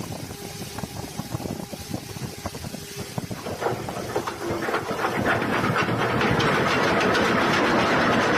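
Ship's anchor chain running out through the windlass, its links clattering faster and louder from about four seconds in until they merge into one continuous loud rattle: the chain is running away out of control.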